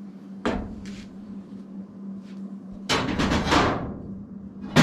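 A bent steel ash rake knocking and scraping against the wood stove's steel ash-door opening as it is worked and pulled out, with a sharp metal clank near the end.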